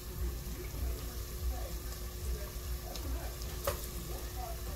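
Onion rings frying in hot oil in a pan, a steady sizzle, as they are lifted out with a metal fork. A single sharp click about three-quarters of the way through.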